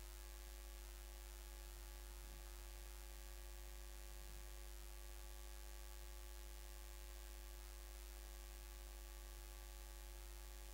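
Faint, steady electrical mains hum with a light hiss.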